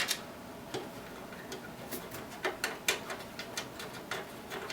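Scattered small clicks and taps, irregular and a few per second, of hands working at the metal PC case, loosening thumb screws to take a panel off.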